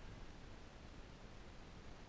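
Near silence: a faint, steady hiss with no distinct sounds in it.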